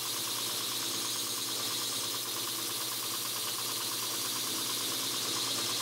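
Belt grinder running steadily with a carbon-steel knife blade held to the abrasive belt to grind the edge: a constant motor hum under the hiss of steel being ground.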